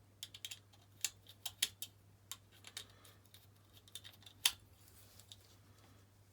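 Faint, irregular small metallic clicks and taps from handling the insert of a brass Zippo-style petrol lighter while its flint spring screw is worked loose, with one sharper click about four and a half seconds in.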